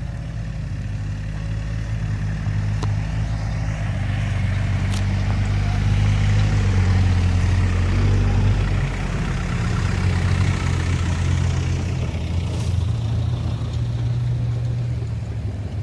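Engines of 4x4 off-road vehicles running, growing louder toward the middle and easing off after, as a vehicle passes close by.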